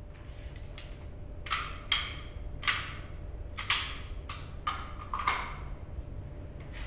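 A pistol, likely a SIG P320, being handled after a string of fire: a series of about seven sharp metallic clicks and clacks spread over four seconds, two of them louder than the rest.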